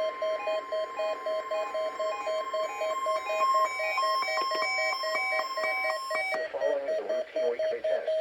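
Several NOAA weather radio receivers beeping their alert alarms, each in its own rhythm, over the station's steady warning alarm tone, triggered by the weekly test. The steady tone and most of the beeping cut off about six seconds in; a voice then starts from the radio while one receiver keeps beeping.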